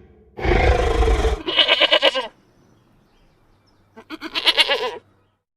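A loud, rough noise with a deep rumble lasting about a second. It is followed by two quavering bleats, one right after it and another about two seconds later.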